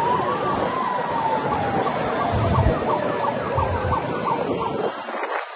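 A vehicle siren wailing, its pitch rising and then sliding slowly down, over road and traffic noise; it breaks off near the end.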